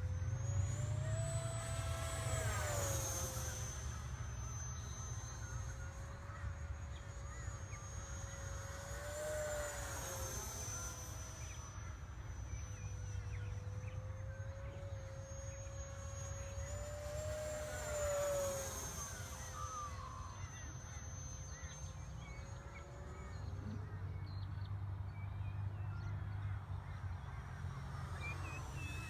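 The 70 mm electric ducted fan of a Viper RC jet on a 6S battery, whining steadily in flight. Its pitch rises and then falls three times, several seconds apart, as the jet makes fly-bys.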